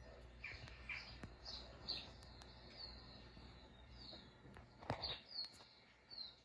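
Faint, short, high chirps, each falling in pitch, repeated about once or twice a second from a television playing a cartoon-mouse video for cats. A single sharp knock about five seconds in.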